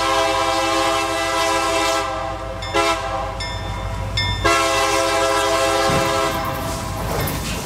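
A diesel locomotive's multi-chime air horn sounds a long blast, a short one and another long one over the rumble of its engine as it approaches a grade crossing. About six seconds in, the locomotive strikes a car, and a loud crash of metal rises as the horn fades.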